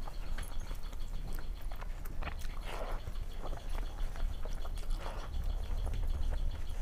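Close-miked mukbang eating: chewing and wet mouth clicks and smacks of a person eating rice and fish curry by hand, with fingers squelching the rice on a steel plate. A couple of louder breathy bursts come about a third of the way in and again past the middle.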